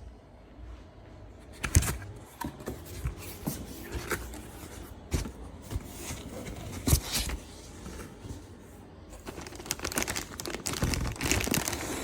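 Packaging being opened and handled: cardboard and plastic crinkling and tearing, with irregular knocks and clicks, and a dense stretch of crinkling near the end.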